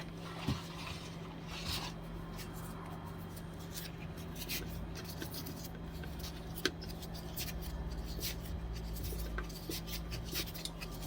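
Paper towel being handled and twisted by hand: faint, scattered rustling with small clicks, over a steady low hum.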